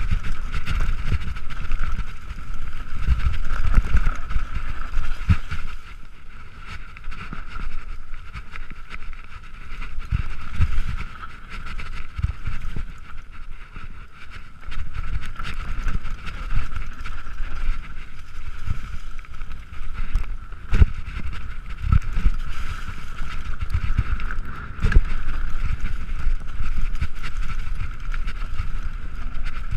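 Mountain bike riding fast down a rough dirt trail, heard from a bike-mounted camera: wind buffeting the microphone and a run of knocks and rattles as the wheels and suspension hit roots and bumps, over a steady high-pitched whir.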